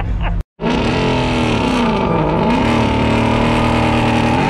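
Ford Mustang engine revving hard during a burnout, starting abruptly about half a second in after a brief cut-out. The pitch dips once, then climbs back and holds high.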